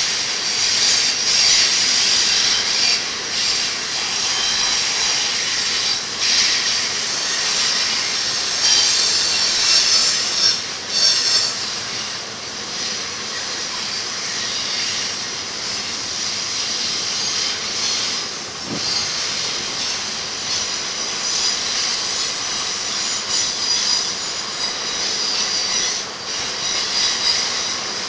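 Double-stack intermodal train cars rolling downgrade around a curve, their wheels giving a steady high squeal and hiss against the rails.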